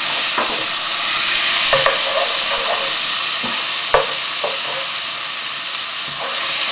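Chicken strips and spring onions sizzling steadily in hot oil in a pot while being stir-fried. A wooden spoon knocks and scrapes against the pan a few times, sharpest about four seconds in.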